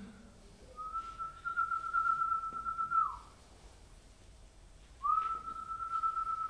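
Human whistling: two long, steady high notes at the same pitch, each held a little over two seconds, the first ending in a quick downward slide, imitating an eagle's cry.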